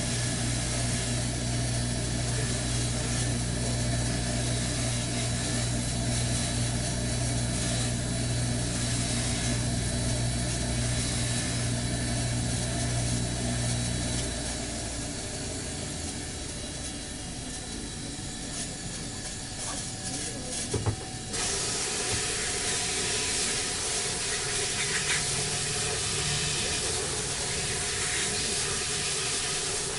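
Steady hissing, like rushing air, over a low electrical hum that stops about halfway through. About two-thirds of the way through there is a sharp click, and the hiss turns brighter and stronger.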